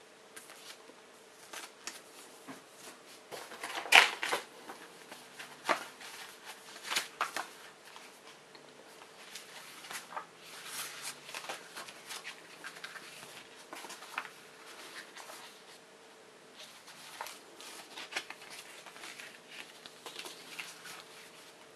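Paper being handled: a CD in its paper sleeve and a stack of paper manuals and leaflets shuffled and leafed through, giving irregular rustles and light taps, the loudest about four seconds in.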